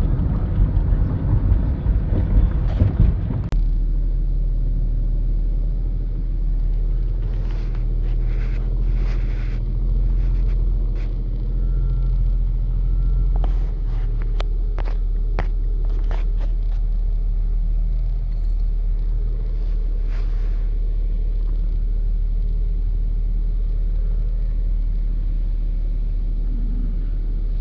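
Low rumble of a vehicle moving on the road, heard from inside: rougher for the first few seconds, then after an abrupt change a steady low drone with a few faint clicks and taps.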